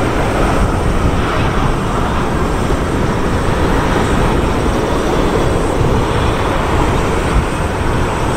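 Boeing 777-200ER airliner's twin jet engines running with a steady, loud, even noise as the aircraft moves slowly along the runway.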